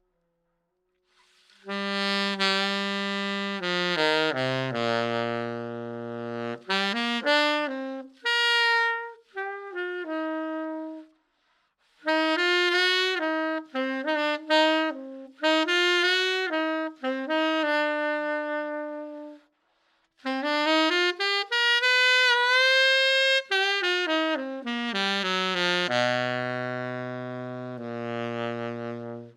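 Saxophone played through a curved-baffle 'Desert Blush v0.8' mouthpiece. It plays phrases that mix held low notes with quick runs, and there is a slow rising slide about two-thirds of the way through. Short pauses fall between the phrases, and the first second and a half is silent.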